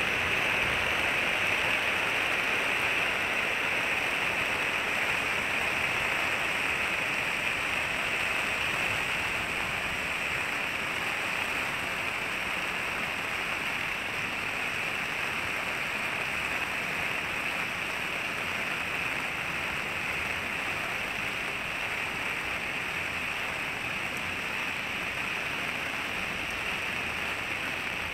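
Steady rain falling on wet pavement: a constant, even hiss with no separate drops or knocks standing out, a little louder in the first several seconds.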